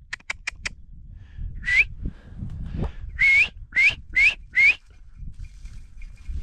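Whistled recall to a hunting dog: four very quick pips, then five short, sharp whistle blasts, each bending upward in pitch.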